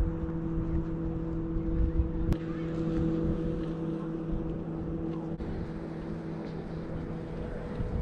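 A steady low motor or machine hum, holding one even pitch, with wind rumbling on the microphone.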